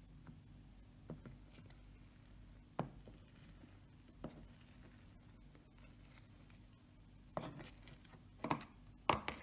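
Fluffy slime being poked and squeezed by hand in a plastic tub: faint sticky clicks a second or two apart, then a run of louder pops and crackles near the end as the slime is gathered up.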